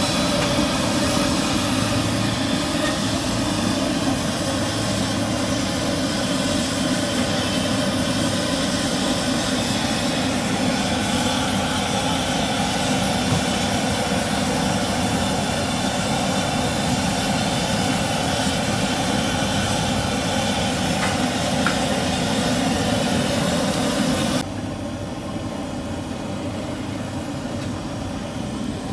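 Jalebi frying in a wide karahi of hot oil: a steady sizzle over a constant low roar, which drops abruptly and gets quieter about 24 seconds in.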